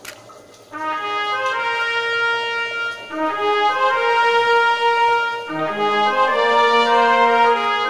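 Background music: a melody of long, held brass notes, coming in under a second in.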